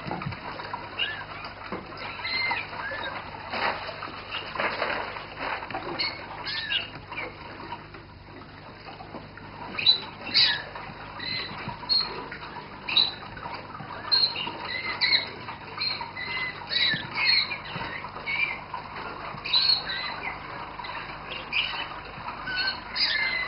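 Several Roller canaries singing, a stream of short rising and falling notes that grows busier from about ten seconds in.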